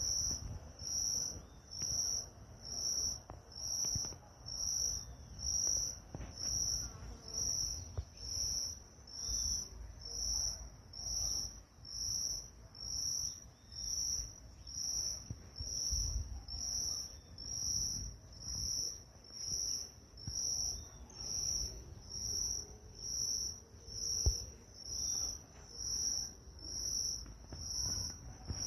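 An insect calling in even, high-pitched pulses about once a second, with a faint low rumble underneath.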